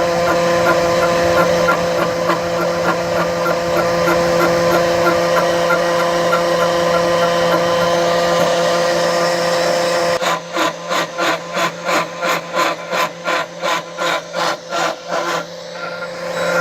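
CNC milling machine running a trial cut in metal: a steady whine with several steady tones and a faint regular ticking. About ten seconds in it changes to an even pulsing about three times a second for some five seconds, then the steady running returns near the end.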